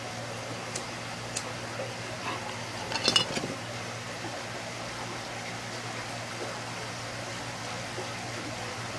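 A lighter is flicked to light a glass hand pipe: two faint clicks in the first second and a half, then a quick cluster of sharper strikes about three seconds in. A steady low hum and hiss runs underneath.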